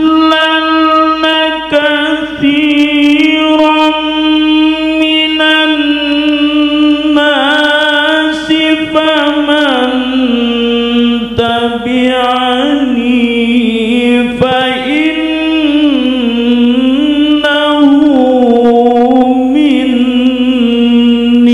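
A male qari reciting the Qur'an in the melodic tilawah style into a microphone: long, held, ornamented notes that waver and slide, broken by a few short breaths, the pitch settling lower in the second half.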